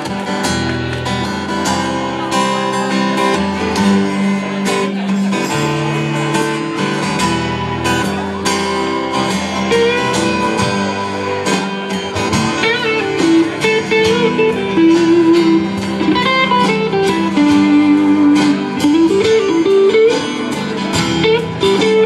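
Live band playing an instrumental passage: strummed acoustic guitars, bass and drums keeping a steady beat, with a bending lead guitar melody coming in about ten seconds in.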